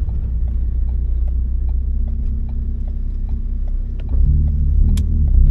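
Turbocharged Ford Focus ST four-cylinder engine running at low speed, a steady low hum with a faint regular ticking about two or three times a second. About four seconds in the engine note gets louder and deeper.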